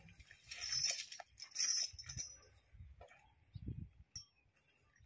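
Metal chain on an Asian elephant's leg clinking and rattling in two bursts as the elephant gets up from lying down, followed by a few soft low thuds as it shifts its weight.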